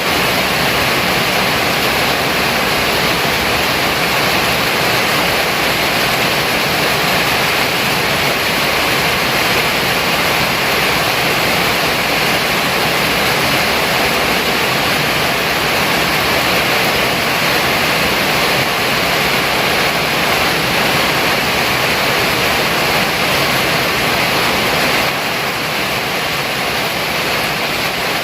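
Heavy rain pouring steadily, an even hiss with no thunderclaps, a little quieter near the end.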